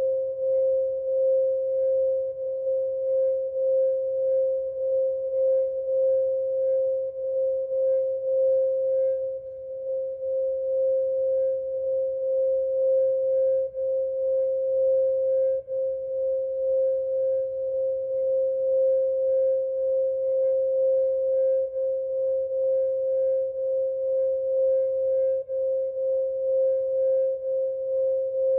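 Quartz crystal singing bowl sustaining one steady 528 Hz tone, with a slow, regular waver in loudness.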